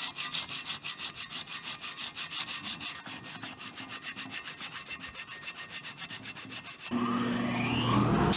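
Abrasive paper rubbing back and forth over a freshly welded aluminium cylinder-head fin, a quick, even scratching at about six strokes a second: the final smoothing that takes out the file marks. About a second and a half before the end the rubbing stops and a steadier hum with a rising whine takes over.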